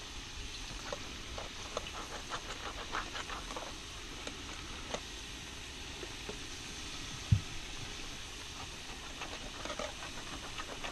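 Potato fries sizzling in hot oil in a cast-iron pan on a camping stove, a steady hiss, with a wire whisk ticking against a plastic container in two bouts as beer batter is mixed. One short thump about seven seconds in.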